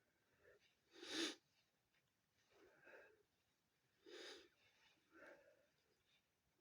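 A person with a head cold sniffing and breathing hard through a congested nose: five or so short noisy nasal breaths about a second apart, the loudest about a second in.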